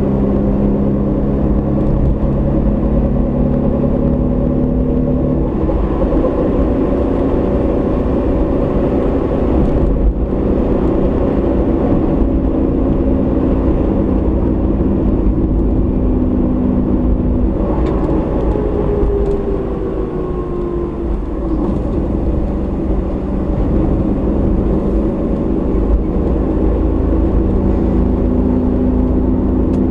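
Car driving, heard through a dashcam inside the cabin: a steady low rumble of engine and road noise. The engine hum shifts in pitch several times as the speed changes, falling away briefly about twenty seconds in.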